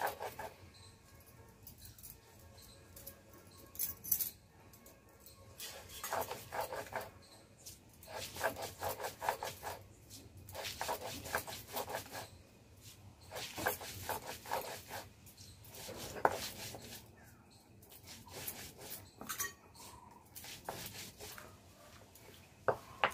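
Stone grinding on stone: a hand-held grinding stone rubbed back and forth over a flat stone slab (sil-batta) to grind wet spice paste, in repeated bouts of quick rasping strokes with short pauses between.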